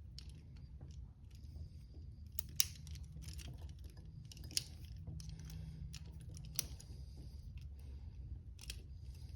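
Small metal clicks and scratching of a handcuff pick working in the keyhole of double-locked handcuffs, with three sharper clicks about two seconds apart.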